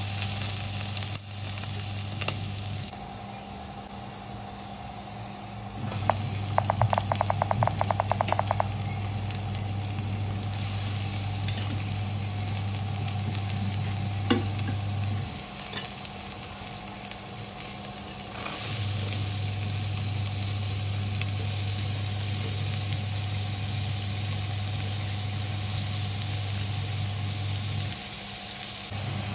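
Chopped green chillies, then chopped onions, sizzling as they fry in hot oil in a nonstick pan. A low hum stops and starts several times, and a quick run of clicks comes about seven seconds in.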